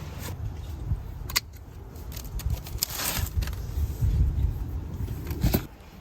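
Rustling and handling noises from plants and produce being picked, with a few sharp clicks and a low rumble on the microphone.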